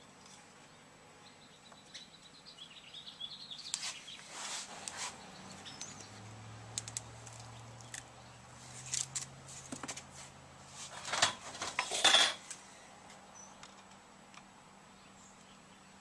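Hands working a subwoofer's freshly glued rubber surround against its metal basket: scattered rubbing, taps and small clacks, loudest in a short burst of clattering about eleven to twelve seconds in.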